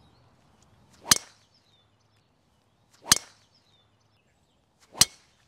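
Three golf drives: each time a driver head strikes the ball off the tee with a sharp crack, about two seconds apart.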